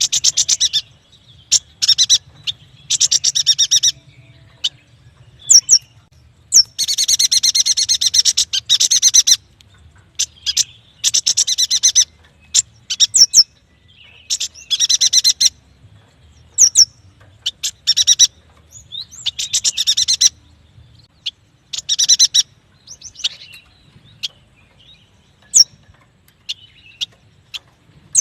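Yuhina singing: loud bursts of fast, buzzy chattering song, each lasting up to a couple of seconds, broken by short high chirps and brief pauses.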